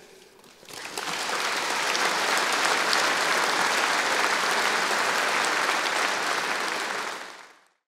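A large audience applauding, building up about a second in, holding steady, then fading out near the end.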